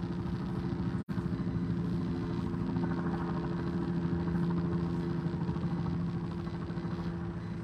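An engine idling steadily, a low even hum. The sound cuts out completely for an instant about a second in.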